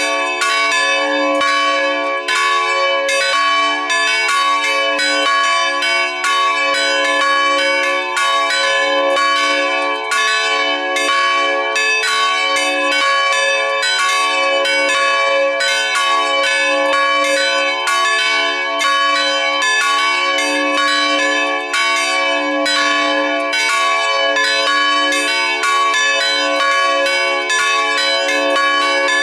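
Full peal of three swinging church bells cast by the Felczyński foundry in Taciszów in 2004. Their clappers strike in a dense, overlapping, irregular pattern several times a second, and the ringing of each strike carries on under the next.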